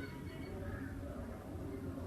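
Faint outdoor background between crow calls: a steady low rumble with a few faint high chirps near the start.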